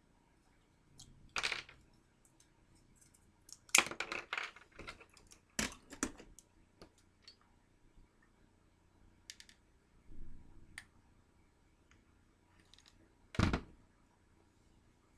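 Hard plastic chain links being handled on a tabletop: scattered sharp clicks and light knocks, the loudest about four seconds in and again near the end.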